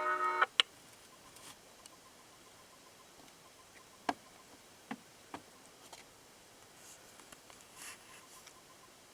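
Church-bell chime from a model diorama's sound unit cutting off abruptly about half a second in, followed by a sharp click. After that only a few faint scattered clicks over a low background hiss.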